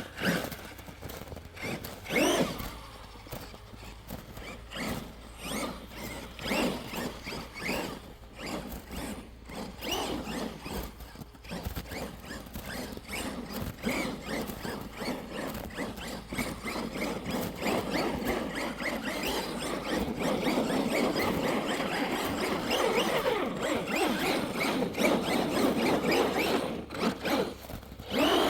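Electric RC truck's motor and drivetrain whining and squealing in short bursts of throttle, rising and falling in pitch, busier and louder in the last ten seconds. The driver suspects gear-mesh problems, or snow in the gears.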